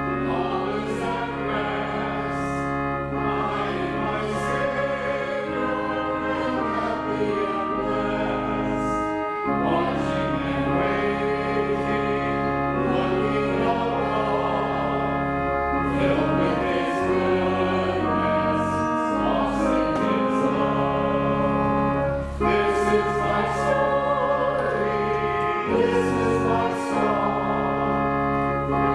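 A hymn sung by a choir or congregation with instrumental accompaniment: held chords over a slow-moving bass line.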